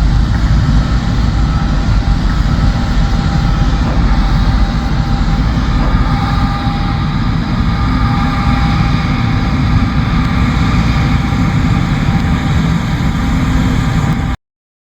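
John Deere S780 combine harvester running steadily: a loud low engine drone with faint, steady whining tones from the machinery. It cuts off suddenly near the end.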